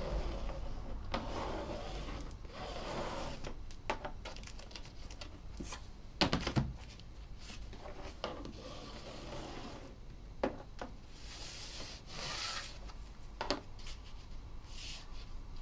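A bone folder rubbing and scraping along the cover and spine joint of a freshly rebound hardcover book, under hand pressure. Scattered clicks and knocks on the boards break the rubbing, the loudest a pair of knocks about six seconds in.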